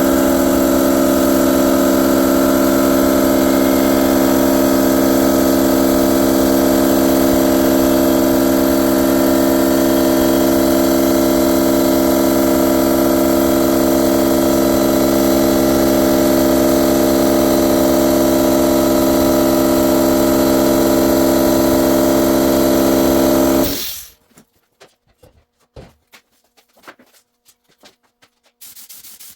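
An electric motor runs loud and steady at constant speed, then shuts off abruptly about 24 seconds in, leaving only faint scattered rubbing sounds.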